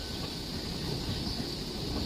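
Steady low rumble of a running train, with a continuous high-pitched insect chirring over it.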